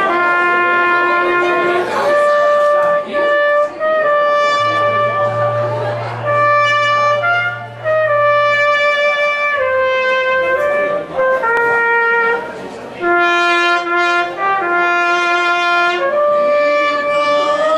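Trumpet playing a slow melody of long held notes, changing pitch every second or two with brief breaks between phrases.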